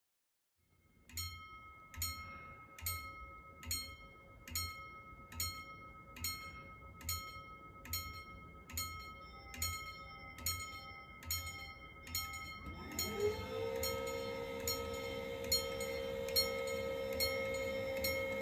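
Level-crossing warning bell ringing with evenly spaced strikes, a little over one a second, starting about a second in. About 13 s in a steady whine rises in pitch and holds under the bell: the barrier motor starting as the barriers lower.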